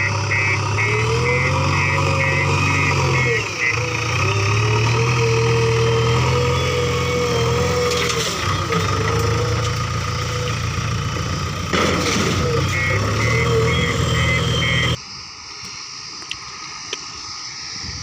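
Heavy diesel engine of a backhoe loader working, its pitch rising and falling as it revs under load. A fast run of beeps from an alarm sounds near the start and again near the end. About 15 s in, the sound drops suddenly to a quieter engine hum.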